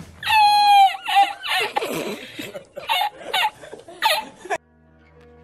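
A man laughing hard: one long high-pitched squealing laugh, then a run of short wheezing bursts of laughter. The laughter cuts off suddenly a little past four and a half seconds in.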